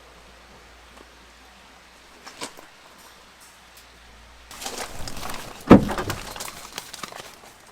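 Faint steady hiss, then a spell of rustling and knocking with one sharp, loud thump a little before the end.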